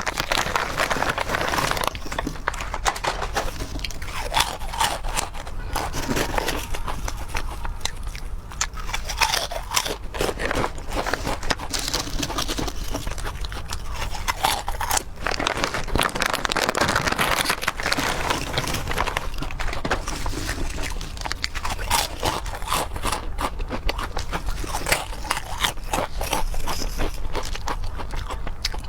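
A person chewing and biting food close to the microphone, with a dense, continuous run of crunching and clicking mouth sounds.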